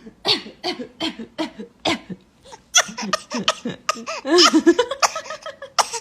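A six-month-old baby coughing: five short coughs about two a second, then a quicker, busier run of short voiced coughs and sounds.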